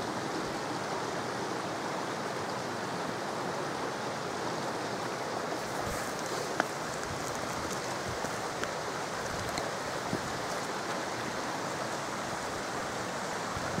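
Steady sound of a beck's running water, unchanging throughout, with one brief sharp click about halfway through.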